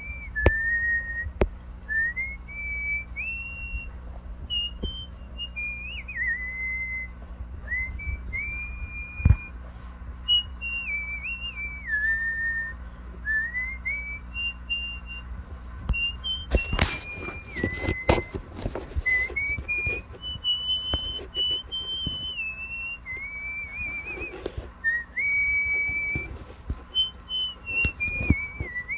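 A person whistling a slow, wandering tune in a thin, high tone, holding notes and sliding between them in short phrases. Rustling and handling noise comes in around the middle.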